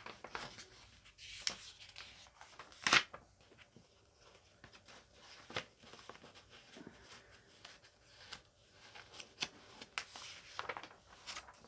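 Paper and packaging rustling and shuffling as items and pages are handled. There are scattered soft clicks and one sharper knock about three seconds in.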